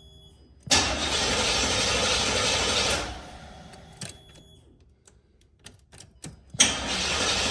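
Chevy 305 V8 turning over on its starter without catching, in two bursts of cranking, the first about two seconds long, with a few sharp clicks between them and the second starting near the end. Starter fluid has been sprayed in and it only acts like it wants to start, which the owner puts down to no spark from the ignition coil.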